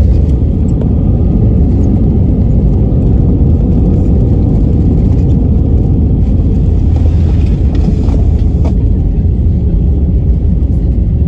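Heavy low rumble of an Airbus airliner touching down and rolling out on the runway, heard from inside the cabin, with a jolt right at the start as the wheels meet the runway. The wing's ground spoilers are raised during the rollout.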